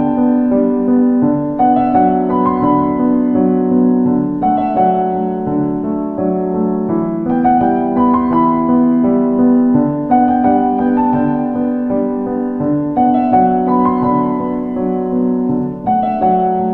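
Background piano music: a melody of held, overlapping notes, with the chords changing about every three seconds.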